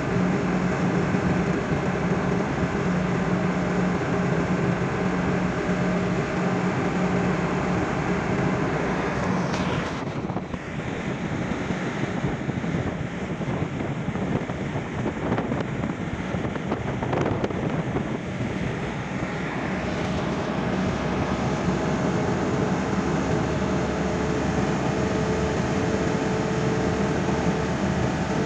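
Steady engine drone and road noise of a car driving along a highway, heard from inside the car. From about 10 to 20 seconds in, the steady hum gives way to a rougher rushing noise, then returns.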